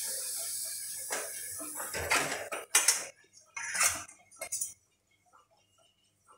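Hot oil sizzling in a kadhai after the papaya puris are lifted out, fading over the first two seconds, then several sharp clinks of a metal spoon against the pan and dishes.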